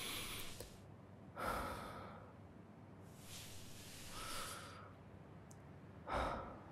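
A man breathing softly and close to the microphone: a few slow breaths and sighing exhales, each lasting about half a second to a second, with short quiet gaps between them.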